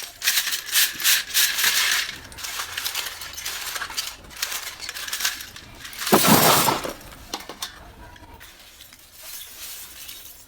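Hard, dry pieces of roasted multani mitti (Fuller's earth clay) crunching and clinking in a string of sharp crackles, with one louder crunch about six seconds in.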